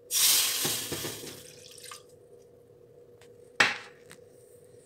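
Water being poured into a metal saucepan for about two seconds, the rush fading out. About three and a half seconds in comes a single sharp metallic clank.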